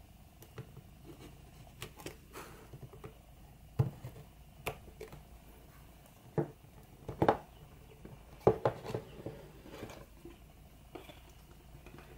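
A knife blade cutting through the seal stickers on a cardboard phone box, then the lid being worked off the box: a string of light scrapes, clicks and taps, louder about four, seven and nine seconds in.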